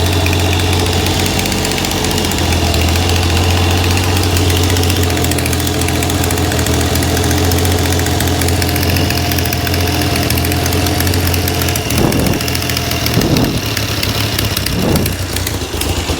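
1969 Triumph Trident's three-cylinder engine idling steadily, running with an exhaust leak. Near the end it is revved briefly three times.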